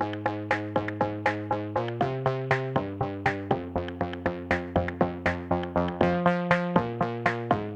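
Background music: sustained chords that change every half second or so over a steady, even beat.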